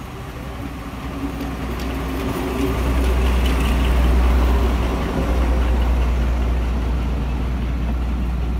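BR Class 42 Warship diesel-hydraulic locomotive D832 passing close with a train, its twin Maybach diesel engines running with a deep rumble that grows to a peak about four seconds in as it goes by, followed by the coaches rolling past.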